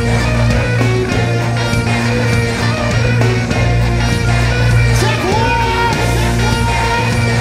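Rock band playing live: electric guitars over a heavy, steady bass and drums with cymbals. About five seconds in, a note slides up and holds.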